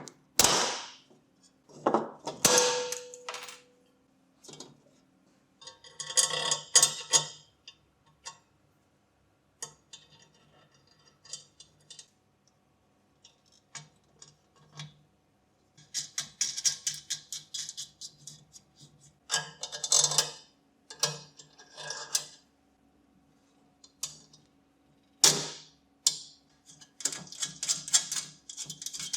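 Small metal parts of a vintage fan heater being handled and fitted: irregular clicks, taps and short scraping rattles, with a brief metallic ring about two and a half seconds in.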